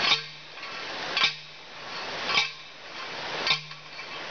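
Manual post driver slamming down onto a steel T-post: four metal clangs about a second apart, each ringing briefly, as the post is driven into ground that is hard going.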